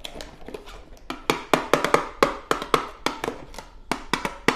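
Adhesive plastic barrier film being peeled off its roll through a cardboard dispenser box: a run of sharp, irregular clicks and crackles, several a second.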